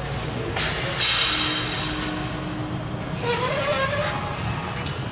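Steady low rumble of gym room noise, with a brief clatter about a second in as dumbbells are handled on a rack.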